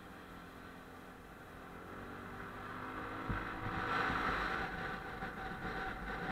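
Motorcycle engine running on the move, its pitch gliding slightly, with wind and road noise on the mounted camera; about three seconds in there is a low thump and the wind noise gets louder.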